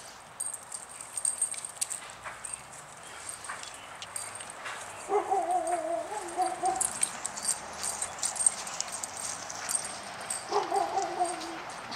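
Dogs play-wrestling, with one dog giving a wavering, whining vocalisation twice: about five seconds in for a second and a half, and again briefly near the end. Short scuffling clicks run between them.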